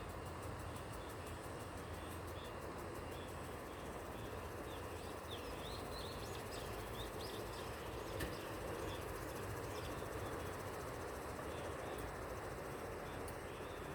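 Steady distant city traffic hum. Faint short high chirps come through in the middle, and there is one sharp click about eight seconds in.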